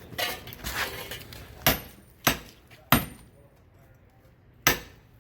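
Four heavy hammer blows on metal, cutting into the smelted iron bloom: three in quick succession a little over half a second apart, then one more near the end, some of them leaving a short high metallic ring.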